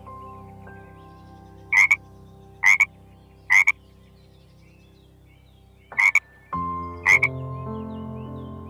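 Frog croaking five times, each call a short double croak: three evenly spaced, then a pause, then two more.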